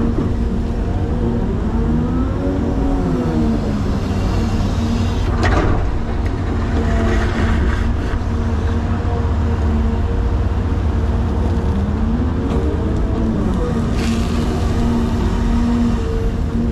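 Caterpillar 336 excavator's diesel engine running steadily under working load, with a whine that rises and falls twice as the machine works. A sharp knock comes about five seconds in and another near the end.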